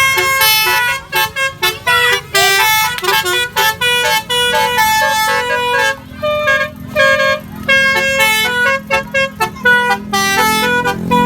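Basuri horn, a multi-trumpet telolet-style musical air horn on a vehicle, playing a fast melody of short stepped notes with brief breaks about a second in and around six seconds. A low drone builds under it near the end.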